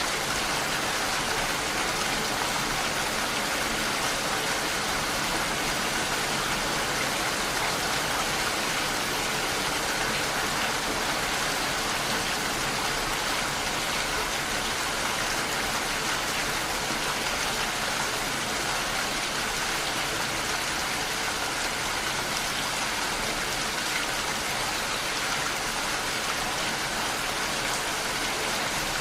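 Steady rainfall, an even hiss of rain that does not change.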